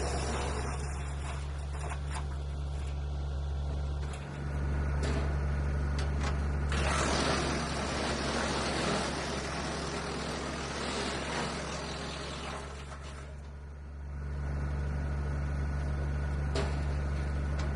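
Frontier DH8 wood chipper running with a steady low drone, with a louder rush of chipping from about seven to thirteen seconds in as wood is fed through it.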